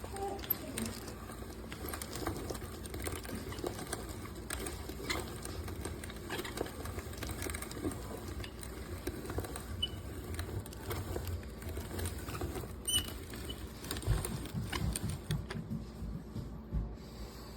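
Hand-cranked stainless steel burr grain mill grinding, a continuous irregular crunching and rattling of many fast small clicks, with some low thumps near the end.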